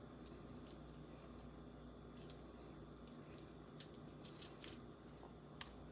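Near silence with a few faint light clicks and taps as a basting brush is dipped into a plastic bowl of glaze and dabbed onto salmon fillets on a foil-lined tray; the clearest tick comes a little before the four-second mark.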